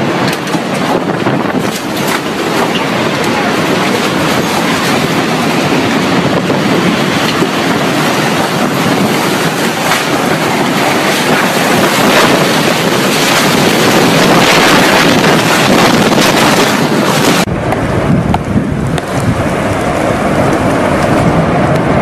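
Tornado wind: a loud, continuous rush buffeting the microphone, with scattered sharp knocks. About three-quarters of the way through it switches abruptly to a duller, deeper rush.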